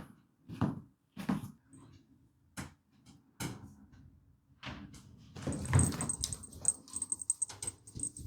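A dog making a series of short whimpers, a few separate ones and then a busier, louder run of sound in the second half.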